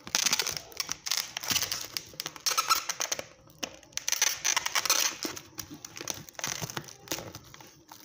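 Clear plastic wrap over fruit trays crinkling and rustling in crackly bursts with short breaks between them.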